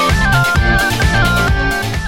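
Background music with a melody over a steady drum beat.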